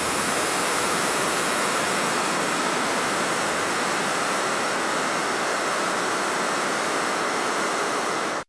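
Steady, even rushing hiss with no voices or clinks in it, cutting off abruptly at the end.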